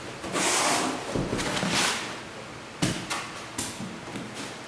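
Cardboard box and foam packing rustling and scraping as a boxed desktop PC is handled and pulled at, with a sharp knock a bit under three seconds in and a few lighter clicks after it.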